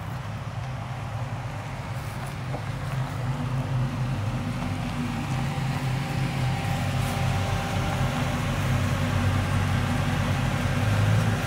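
Chevrolet 5.3-litre V8 with an aftermarket 220/224 cam, in a GMC Sierra pickup, running at low speed as the truck rolls up and pulls in, getting steadily louder as it comes closer.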